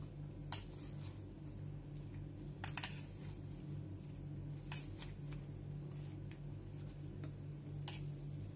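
Hand kneading semolina dough in a stainless steel plate: a few sharp clicks of the hand against the steel, loudest in a quick cluster just under three seconds in, over a steady low hum.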